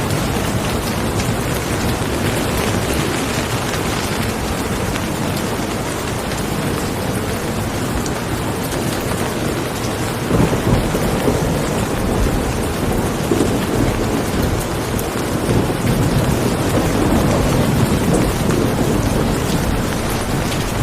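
Steady rain falling, a dense even hiss, with louder low rumbling swells rising about halfway through and again toward the end.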